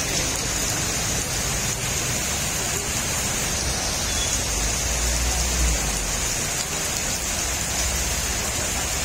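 Heavy rain falling steadily onto wet paving and parked vehicles, a continuous even hiss. A brief low rumble swells about five seconds in.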